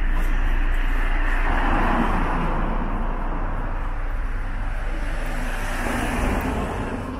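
City street traffic: motor vehicles driving past, one pass swelling a couple of seconds in and another near the end as a van goes by close.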